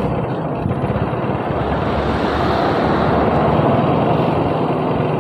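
Wind rushing over the microphone on a moving motorcycle, with the motorcycle's engine and road noise beneath; steady, growing a little louder about three seconds in.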